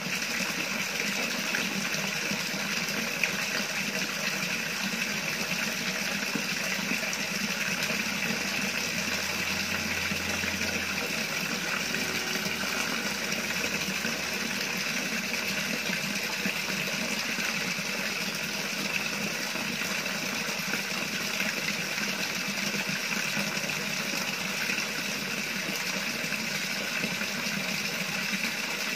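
Steady rush of running water in a koi pond.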